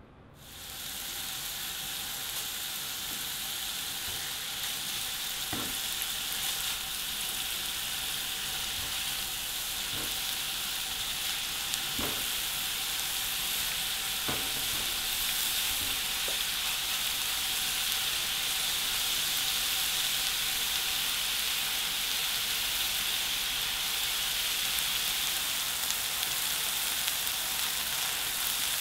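Meat-stuffed green peppers frying filling-side down in oil in a frying pan, the meat searing to brown: a steady sizzle that swells slightly over time, with a few light clicks in the first half.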